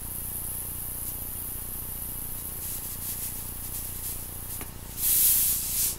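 Table salt pouring from a carton into a tumbler: a faint, steady high hiss of running grains, rising to a much louder hissing rush near the end.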